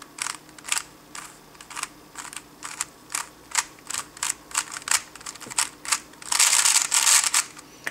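Plastic 3x3 Rubik's cube layers being turned with fingertricks: a run of separate clicking turns, then a quick flurry of turns about six seconds in as the algorithm is executed at speed.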